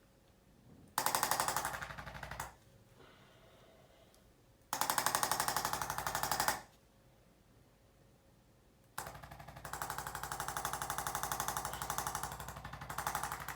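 Handheld electric percussion instrument hammering rapidly against the body in three bursts. The first two last about two seconds each; the third is longer and starts about two-thirds of the way through.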